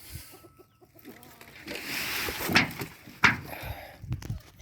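Chickens clucking, with a rustle of something being shifted and then two sharp knocks about two-thirds of a second apart.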